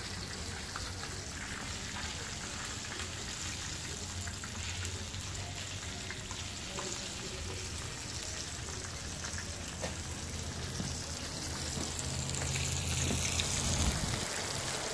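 Flour-dredged whole porgies frying in hot oil in a pan, a steady sizzle over a low hum. The sizzle grows louder near the end.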